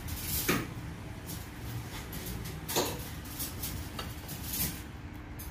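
Chopsticks clicking lightly against a china plate and serving bowl while food is served: two clearer clicks, about half a second in and near three seconds, and a few fainter ones later, over a low steady rumble.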